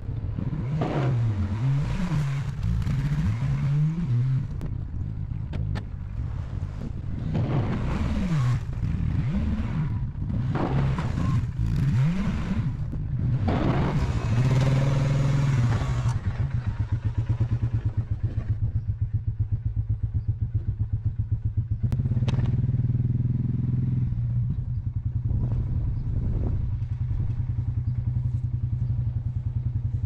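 Polaris Sportsman ATV engine revving up and down repeatedly while plowing snow, then settling to a steady idle about halfway through.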